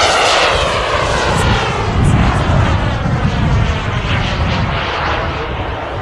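Radio-controlled model jet flying overhead, its engine giving a continuous hissing whine with a sweeping, wavering tone as it passes, slowly fading.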